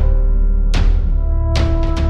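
Cinematic music: deep booming percussion hits, one at the start and others about three-quarters of a second and a second and a half in, each ringing out over sustained orchestral tones.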